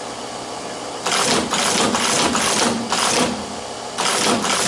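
Teletype Model 15 teleprinters clattering in bursts as characters are keyed on one machine and printed on the other, with the machines' motors running steadily between bursts. One long burst of clatter starts about a second in and another comes near the end.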